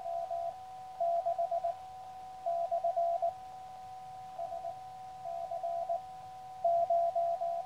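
Morse code (CW) signal received on a QRP Labs QCX Mini transceiver: one steady-pitched beep keyed in short groups of dots and dashes with pauses between them, a summit station sending its summit reference. Faint steady tones sit underneath.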